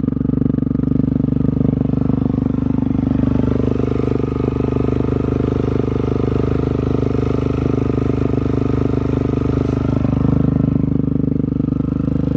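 A 2018 Kawasaki KLX140L's air-cooled single-cylinder four-stroke engine, just started, running steadily at idle through a freshly fitted FMF Powercore 4 aftermarket exhaust.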